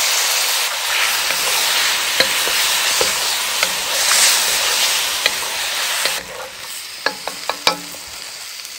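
Seafood stir-frying in a hot wok with sauce just poured in: loud sizzling as a wooden spatula stirs and scrapes. About six seconds in the sizzle drops, and a few sharp taps follow.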